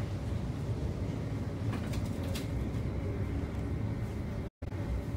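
Steady low rumble inside a moving tram, with a few brief clicks and rattles about two seconds in. The sound cuts out for a split second near the end.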